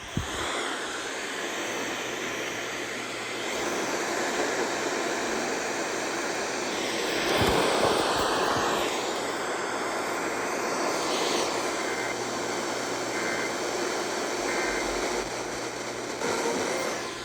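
Strong thunderstorm wind gusting, a rushing noise that swells about seven to eight seconds in.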